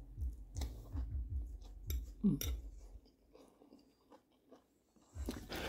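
A person chewing food close to the microphone, with soft repeated mouth sounds and a brief hum about two seconds in. A pause follows, then a louder noise near the end.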